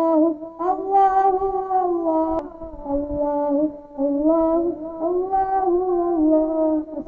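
A solo voice singing a hamd, an Islamic hymn in praise of God, unaccompanied through a public-address system, drawing out long, wavering held notes phrase after phrase.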